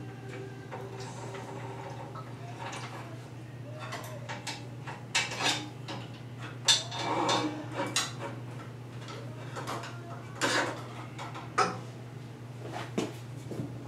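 Sharp metallic clinks and clanks of tools and fittings against a Fairchild J44 turbojet's metal casing, a scattered run of them from about four seconds in, the loudest near the middle, over a steady low hum.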